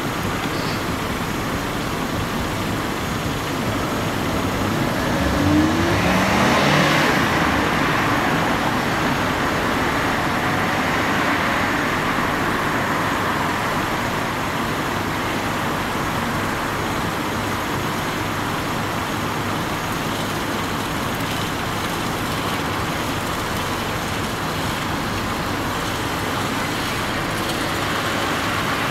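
City street traffic noise: a steady hum of cars at an intersection, with one vehicle passing louder about six seconds in, its engine pitch rising briefly.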